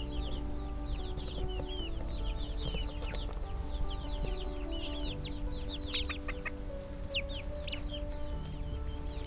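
A flock of young, half-feathered chicks peeping constantly: many short, high, downward-falling peeps overlapping, with a busier cluster about six seconds in.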